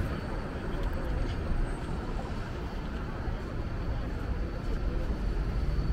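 City street ambience: a steady low traffic rumble with indistinct voices of passers-by.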